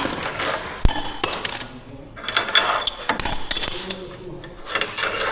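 Metal tools and engine parts clinking and knocking in a repair garage: a string of sharp metallic clinks and a few harder knocks.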